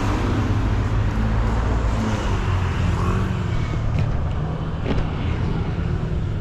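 Road traffic: cars and other motor vehicles driving past, with a steady low engine hum.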